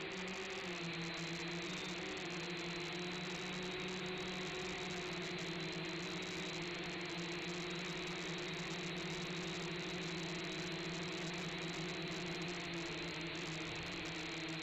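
Eachine H8C mini quadcopter's motors and propellers whirring steadily in flight, a steady hum with a high whine that wavers slightly in pitch.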